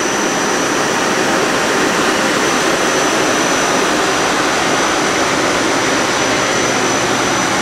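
Okuma LB25 CNC turning center running with its spindle turning under the 40 HP spindle motor drive: a loud, steady whir with a thin high whine over it. It swells slightly at the start, then holds even.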